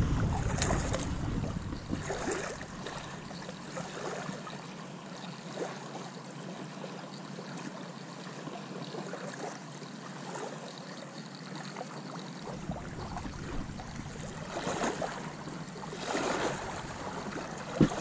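River water lapping at the bank, with wind rumbling on the microphone at first and again in the second half. Scattered light clicks and rustles come from handling a spinning rod and reel.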